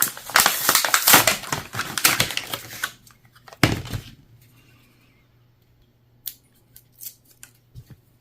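Handling noise: dense rustling and clicking for about three seconds, a single thump near four seconds, then a few faint clicks near the end.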